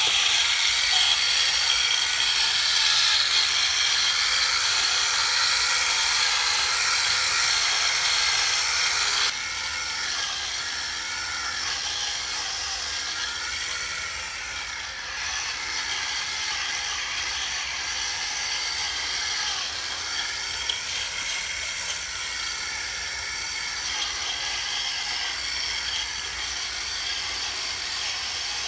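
Homemade lawn mower's small motor running steadily with a high whir; the level drops about nine seconds in.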